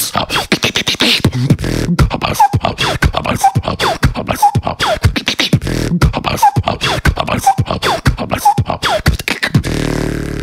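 Solo human beatboxing: a fast, dense pattern of kick, snare and click sounds made with the mouth, with a falling pitched vocal sound repeating about once a second. Near the end the rhythm gives way to a held, low buzzing bass note that fades out.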